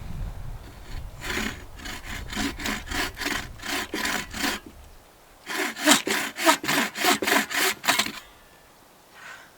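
Buck saw cutting through a log of firewood, with quick back-and-forth strokes about three a second. The strokes come in two runs with a short pause between them, and the second run is louder.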